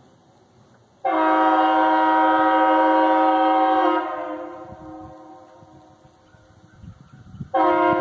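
Hornblasters Outlaw train horn on a bicycle, fed from an air tank, sounds one steady, loud chord blast of about three seconds starting a second in, which then dies away. A second blast starts near the end.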